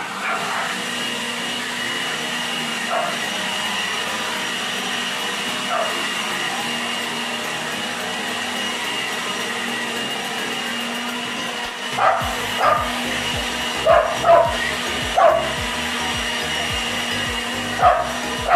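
A dog barking repeatedly in short sharp barks, starting about two-thirds of the way in, over a steady whirring drone.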